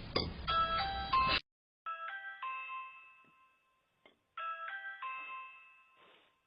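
Electronic doorbell chime ringing repeatedly: a short phrase of several decaying notes, heard three times in quick succession, the first over a background hiss.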